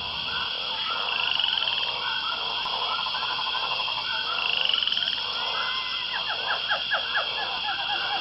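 Dense chorus of animal calls: a steady high trill with many short chirping and croaking calls repeating over it, a quick run of sharp calls near the end.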